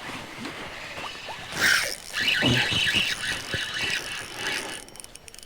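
Fishing reel working: a rapid mechanical ratcheting whir with squeals, running for a few seconds.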